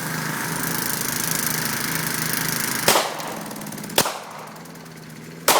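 A lawn mower engine running steadily, then three gunshots from a .45-calibre handgun about a second or so apart. The engine sound falls away after the shots.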